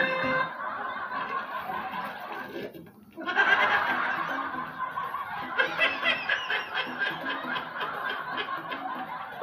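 Laughter and chuckling from a video played back through a speaker. It breaks off briefly about three seconds in, then comes back in quick repeated pulses.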